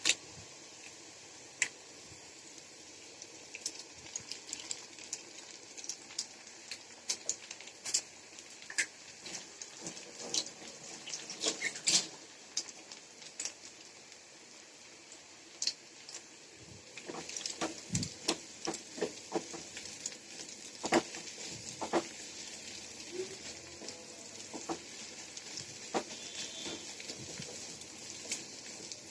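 Cauliflower, carrot and potato bhaji frying in oil in a pan, with an egg just added. A steady sizzle runs under many sharp clicks and scrapes of a spatula stirring and knocking against the pan, growing busier about halfway through.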